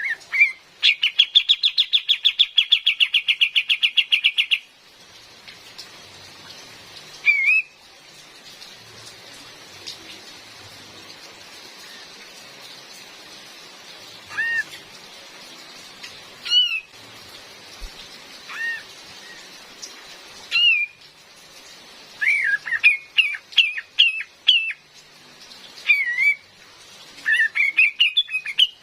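Female kapas tembak bulbul calling. A fast rattling trill runs for the first four or five seconds, then come scattered short call notes and a burst of quick notes near the end, over a steady hiss of rain.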